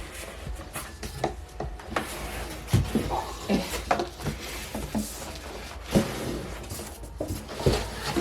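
Cardboard box and packing being handled as a heavy speaker is worked out of a tight box: scattered knocks, scrapes and rustles at irregular moments.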